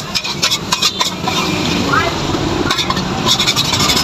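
Busy market hubbub: scattered clicks, knocks and clatter over a constant bed of background noise, with snatches of voices in the middle.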